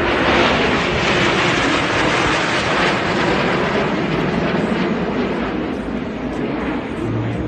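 Aircraft passing overhead in formation: a loud, steady rushing engine noise.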